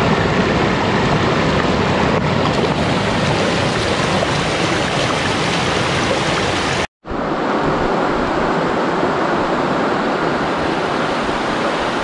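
Steady rush of a fast, shallow mountain stream running over rocks, with a waterfall. It drops out for an instant about seven seconds in, then carries on.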